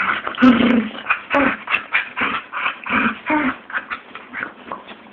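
Two dogs play-fighting, making a quick, irregular string of short vocal noises one after another, the loudest about half a second in.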